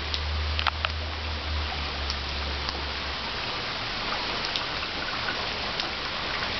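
Heavy rain falling on wet paving and a flooded puddle: a steady hiss with scattered sharp ticks of nearby drops.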